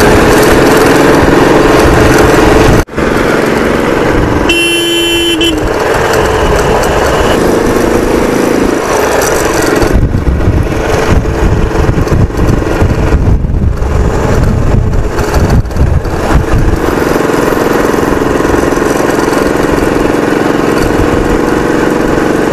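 Motorcycle engine running at road speed with wind rushing over the microphone. The sound drops out sharply for an instant about three seconds in, and a vehicle horn sounds once for about a second at around five seconds.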